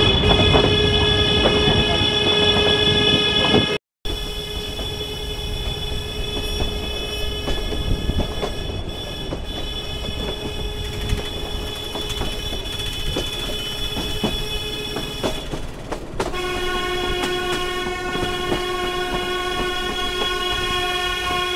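Nilgiri Mountain Railway train running, with a long, steady, high-pitched tone held over the rumble of the wheels. The sound cuts out briefly about four seconds in, and the tone shifts to a slightly lower pitch at about sixteen seconds in.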